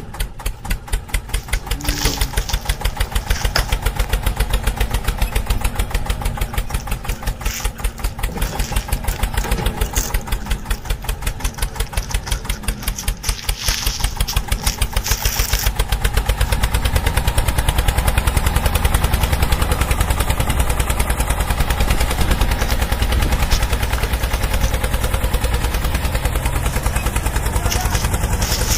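Tractor engine running steadily with an even, rapid chugging beat, a little louder from about two seconds in.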